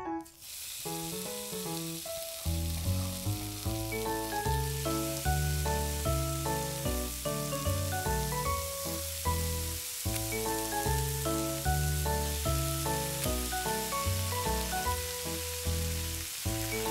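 Butter, then bread and egg, frying with a steady sizzle on a miniature iron griddle. Background music plays over it, its bass coming in about two and a half seconds in.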